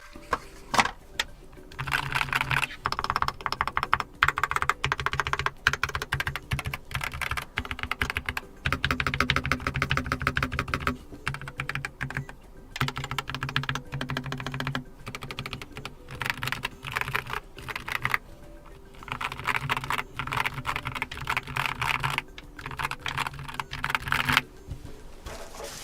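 Typing on a Keychron K4 HE keyboard with Gateron Nebula linear magnetic (Hall effect) switches: fast runs of key presses and clacks in stretches of a few seconds, with short pauses between them.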